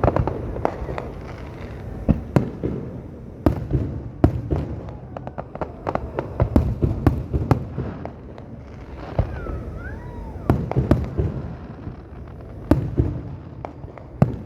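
Fireworks display going off: irregular sharp bangs and booms, sometimes several in quick succession, over a continuous low rumble.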